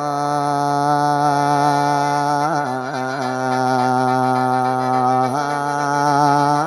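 Khaen, the Isan bamboo mouth organ, playing a melody over held drone notes, with several reed pitches sounding at once and ornamented turns a little over halfway through and again near the end. This is the instrumental lead-in before mor lam singing begins.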